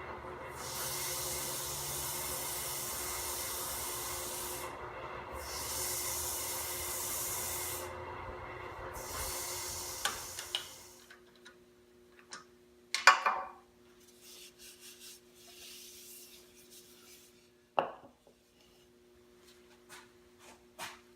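Walnut bowl spinning on a wood lathe with a steady rasping hiss as its surface is worked, broken twice by short pauses. About ten seconds in the lathe runs down and stops, followed by a few sharp knocks and clatter, the loudest about three seconds later.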